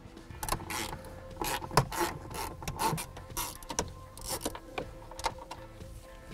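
A socket ratchet clicking in short runs as it backs out the small bolts holding the dashboard bezel, about two clicks a second.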